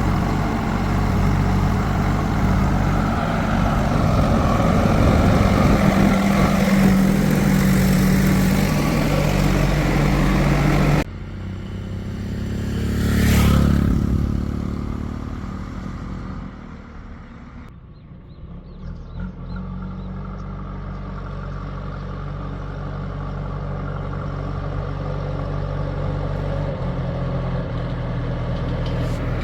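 Heavy diesel engines of working machines running under load, with an abrupt change about a third of the way in. One swells up and fades again shortly after, then an engine runs steadily and slowly grows louder.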